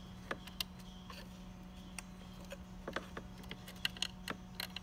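Small scattered clicks and taps of a plastic wire connector and its leads being fiddled against a circuit-board header while it is lined up, over a steady low hum.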